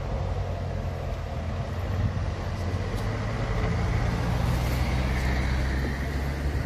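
Double-decker bus engine running as the bus drives slowly into the depot yard, the engine sound steady and growing louder about two seconds in as the bus comes closer. A faint whine rises over it in the second half.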